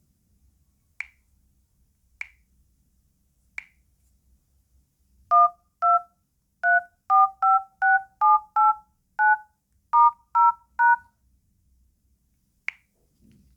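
A phone keypad dialing a number: twelve short touch-tone (DTMF) beeps in quick succession, each two tones sounding together. Three sharp clicks come before the dialing and one more comes near the end.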